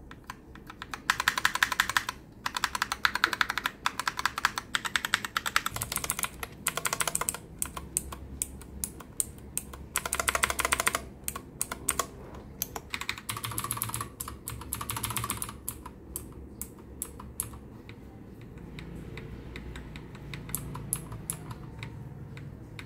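Fast typing on a Fantech mechanical keyboard: runs of rapid key clicks and clacks in bursts, growing sparser and quieter over the last several seconds.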